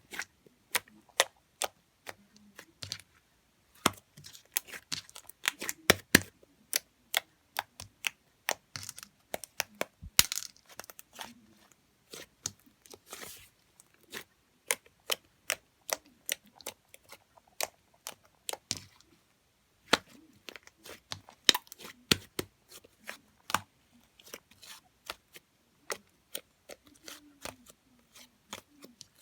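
Irregular sharp clicks and taps, a few a second, with short stretches of rustling or crinkling near the middle.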